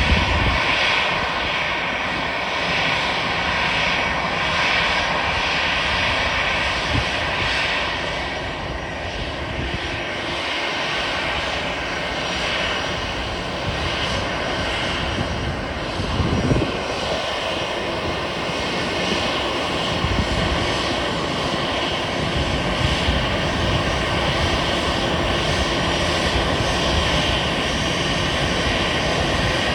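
Airbus A320 jet engines running steadily: a broad, continuous rush with a steady whine on top and an uneven low rumble beneath.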